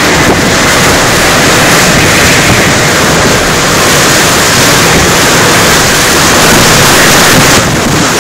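Hurricane-force bora wind hitting the microphone: a loud, steady rush of wind noise that eases slightly near the end.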